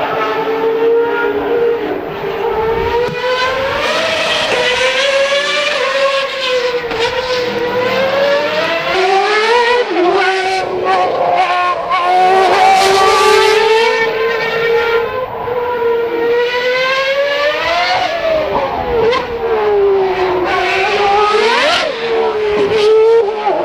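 Formula 1 cars' 2.4-litre V8 engines running at high revs. The pitch repeatedly climbs and drops as the cars accelerate and slow around the circuit, with sharp rising sweeps about ten, eighteen and twenty-two seconds in.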